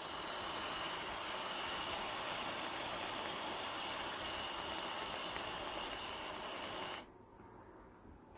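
Aerosol can of whipped cream spraying: a steady hiss that cuts off sharply about seven seconds in.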